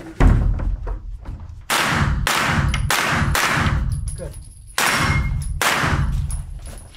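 Shots from a 9x19 mm AR-pattern carbine, the Luvo LA-15, fired mostly in quick pairs about half a second apart, with a short pause about four seconds in. Each shot rings on in the echo of the indoor range.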